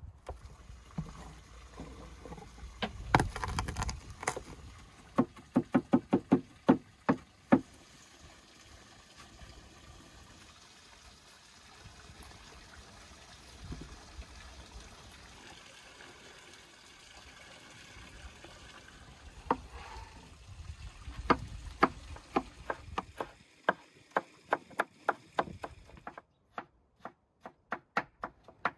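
Kitchen knife chopping on a wooden cutting board: runs of sharp knocks, about three to four a second, near the start and again through the last several seconds, with a quieter stretch between.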